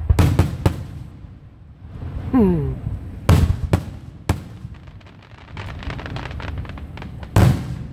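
Fireworks and firecrackers going off: a run of sharp bangs, then a stretch of fast crackling, and a loud bang near the end. A short falling tone sounds about two seconds in.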